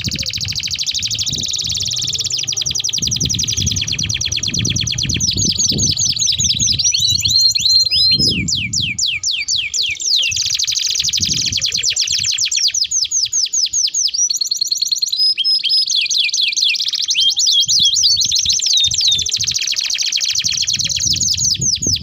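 Domestic canary song: long, fast rolling trills and rapid runs of repeated notes, broken by quick sweeping notes and a few brief pauses, over a low rumble.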